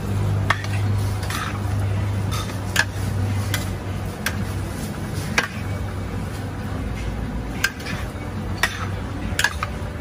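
Metal utensils clanking against cookware: about nine sharp, irregularly spaced clanks over a steady low hum.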